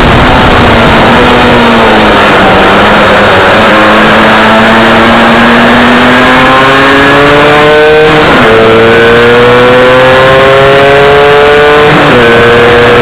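MZ 250 two-stroke single-cylinder racing motorcycle engine at full throttle heard from on board: the pitch dips briefly, then climbs steadily through a gear, drops sharply at an upshift about eight seconds in, climbs again and drops at another upshift near the end. A steady rush of wind runs under it.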